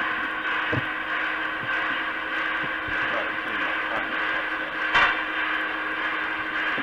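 Electronic model-railroad sound unit giving a steady hiss with a low hum under it, with a few light clicks and one sharp knock about five seconds in.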